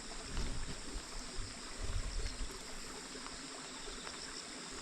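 Rural outdoor ambience: a steady hiss with insects trilling high and unbroken, and a few soft footsteps in the first half.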